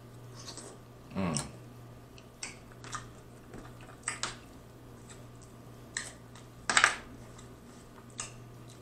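Snow crab leg shells being cracked and snapped apart by hand: a string of short, sharp, irregular cracks and clicks, the loudest about seven seconds in. A brief mouth sound with falling pitch comes about a second in.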